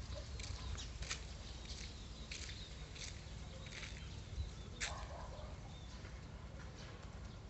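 Small birds chirping in short, high, scattered chirps, over a steady low rumble.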